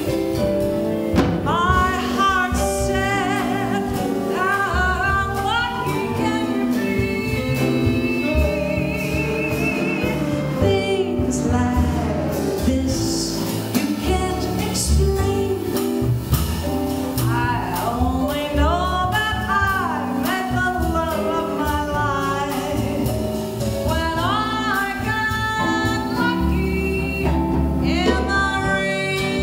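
A female jazz vocalist singing a swing tune live, with a small jazz band accompanying her.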